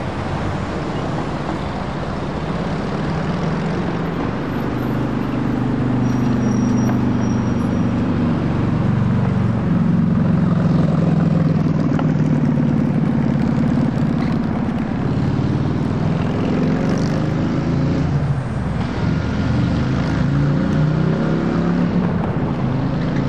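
Road traffic: cars and trucks accelerating away one after another, their engine notes rising in pitch as they pass. It grows louder about four seconds in.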